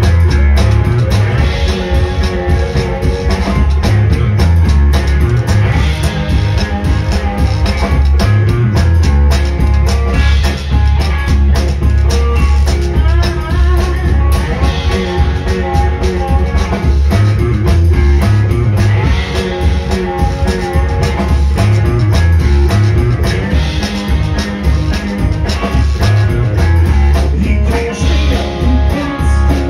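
Live amplified blues-rock: hollow-body guitar played over a heavy, steady drum beat, heard from the audience.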